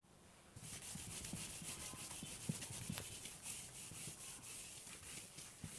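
Faint, scratchy rubbing of a pen or marker writing, with a few soft clicks.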